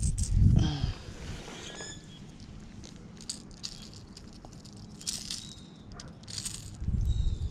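A few low thumps of footsteps on the bank in the first second, then a hard plastic fishing lure and its treble hooks rattling and clicking in short spells as the lure is worked out of a bass's mouth by hand.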